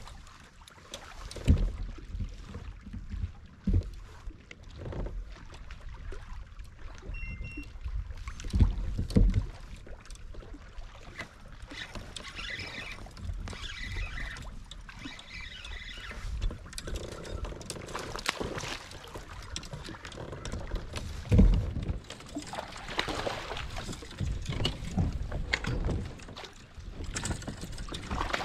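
Water lapping and slapping against a plastic kayak hull, with wind on the microphone and several short, loud low thumps.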